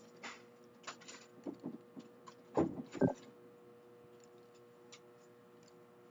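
Computer keyboard keys tapped in an irregular run of light clicks, with two heavier knocks about two and a half and three seconds in, then only a few scattered taps. A faint steady hum runs underneath.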